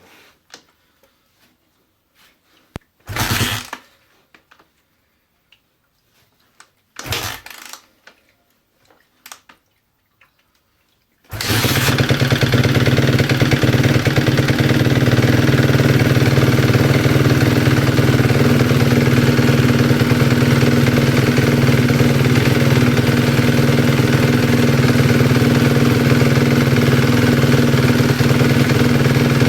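2011 Suzuki RM-Z250 250cc four-stroke single-cylinder engine being cold-started: two short loud bursts from kicking it over, then it catches about eleven seconds in and settles into a steady idle. It idles with the light tick that the owner noticed on cold starts, later traced to wrong cam timing and valve clearances out of spec.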